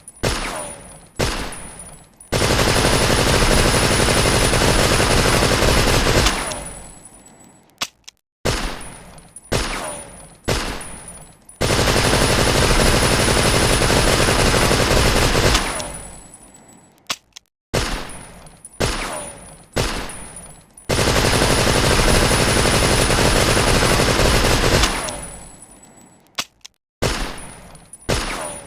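Tommy gun (Thompson submachine gun) firing: a few single shots, then a sustained automatic burst of about four seconds that trails off. The pattern repeats three times, evenly spaced, like a looped sound effect.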